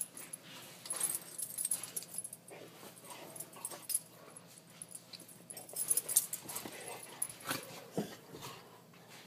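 Two dogs play-wrestling on a bed: irregular scuffling and rustling of the bedding, with short dog vocal sounds scattered through it, the most prominent about eight seconds in.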